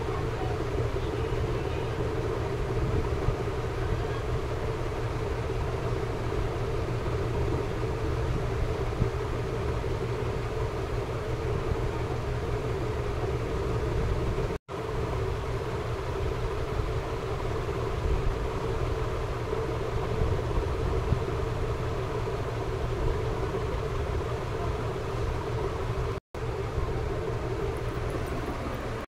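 Khaja (layered maida dough rolls) deep-frying in oil in an iron kadhai: a steady sizzle over a constant low hum. It cuts out for an instant about halfway through and again near the end.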